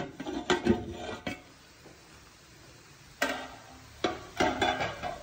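Fried rice being stirred and turned in a pan with a spatula: a cluster of short clicks and scrapes in the first second or so, then separate louder scraping strokes about three and four seconds in.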